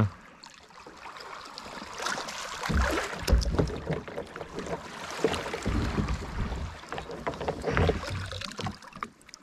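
Water splashing and sloshing around a kayak, with scattered clicks and irregular low thumps; the loudest thump comes about three seconds in.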